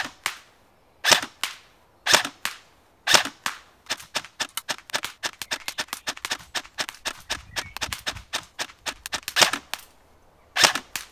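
Airsoft electric rifles (a KWA ERG and a Tokyo Marui Mk18 MOD.1) firing semi-automatic shots. Loud sharp cracks come about one a second, each followed a moment later by a fainter snap. In the middle there is a quicker, denser run of fainter shots.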